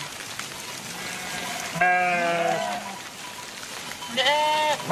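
A flock of sheep bleating, twice: about two seconds in, with several animals overlapping, and again near the end, over a steady background hiss.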